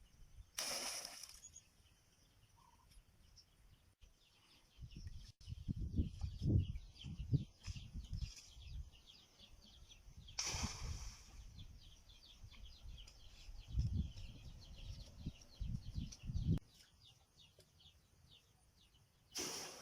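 Faint, rapid high-pitched bird chirping, with two stretches of low, irregular thumping and rumbling. Three short rushing noises break in: about a second in, midway, and near the end.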